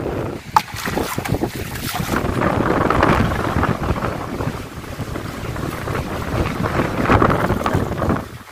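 Water splashing and sloshing as someone wades barefoot through shallow river water and dips a plastic pot in to fill it, with wind rumbling on the microphone.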